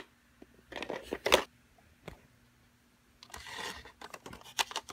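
Handling of a small precision screwdriver kit case: a few sharp plastic clicks, the loudest about a second and a half in, and a short rustle later on.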